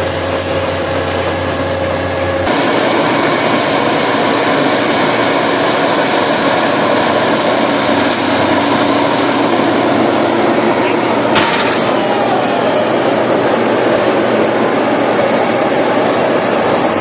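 Farm machinery running steadily with a dense, loud mechanical noise. The sound changes abruptly about two and a half seconds in.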